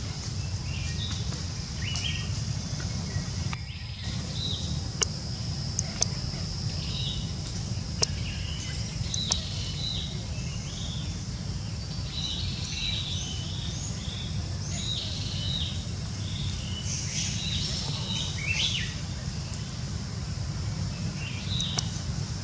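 Forest ambience: birds chirping in short, repeated calls over a steady low rumble and a steady high hum, with a few sharp clicks.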